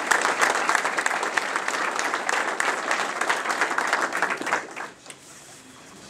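Audience applauding in a crowded room, dying away about four and a half seconds in.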